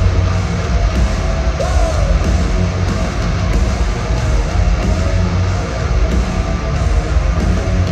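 Heavy metal band playing live at arena volume: a dense, bass-heavy wall of full-band music.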